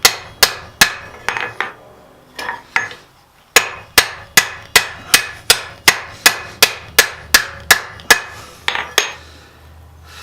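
Blacksmith's hammer striking steel on an anvil in a steady rhythm, about three ringing blows a second. A short pause with a few lighter taps comes about two seconds in, and two last spaced blows fall near the end.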